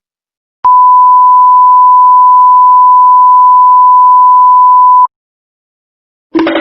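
Censor bleep sound effect: a single steady, high-pitched pure beep held for about four and a half seconds, starting just under a second in and cutting off sharply. Music with a beat starts right at the end.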